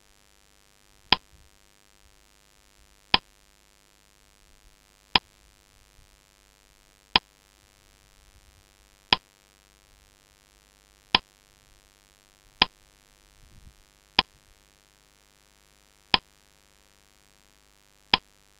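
Countdown-timer tick sound effect: sharp single ticks about every two seconds, with one extra tick a little past halfway.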